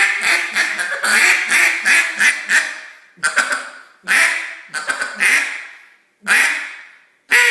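Committed Custom Calls Big Bore duck call being blown. A fast run of short quacks for about three seconds, then four single quacks about a second apart, each fading away. A fast run of quacks starts again near the end.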